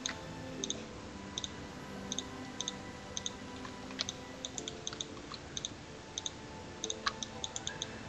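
A run of short, sharp computer mouse clicks, many in quick pairs, over quiet background music with held notes.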